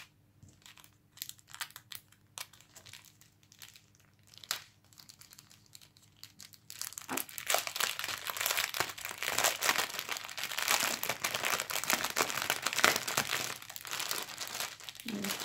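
Thin clear plastic bags crinkling as small packets of diamond-painting drills are handled and pulled apart. There are a few scattered crackles at first, then steady, dense crinkling from about seven seconds in until near the end.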